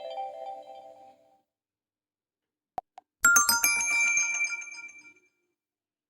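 OPPO ColorOS 7 phone notification tones: the tail of one tone fades out in the first second, then after a short click a new bright, high-pitched notification sound of several quick notes starts about three seconds in and dies away over about two seconds.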